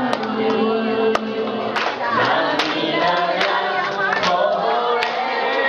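Several voices singing together through handheld microphones and a PA loudspeaker, holding long notes, with a sharp beat keeping time about every 0.8 seconds.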